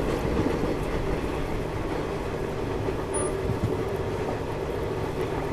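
Garib Rath Express passenger coaches running at speed, heard from on board: a steady rumble of wheels on rails.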